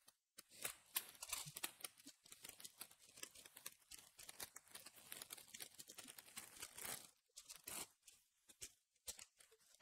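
Faint crinkling and tearing of plastic shrink wrap being cut and pulled off a trading-card booster box: scattered soft crackles.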